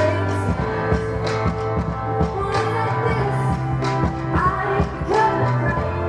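Live rock band playing with a woman singing, drums, bass and guitar, heard as a concert recording.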